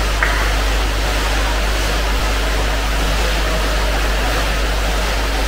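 Steady, loud rushing hiss with a deep low rumble beneath it and one faint click a moment in.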